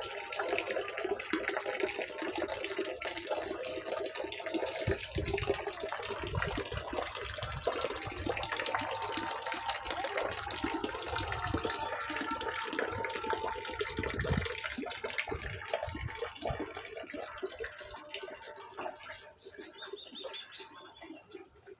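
Water running and splashing steadily, fading off over the last few seconds.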